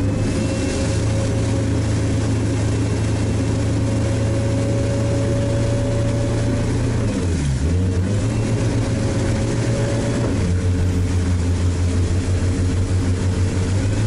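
Sherp amphibious ATV's diesel engine running steadily; its pitch dips sharply about seven seconds in and recovers, then shifts again near ten seconds.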